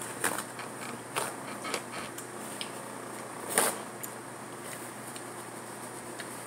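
Paper towel being handled and wiped across the mouth: scattered small rustles and clicks, with one louder rustle about three and a half seconds in, over a steady background hiss.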